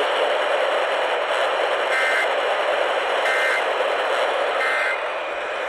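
Radio hiss with three short EAS data bursts, warbling tones about 1.3 seconds apart: the end-of-message code that closes an Emergency Alert System test.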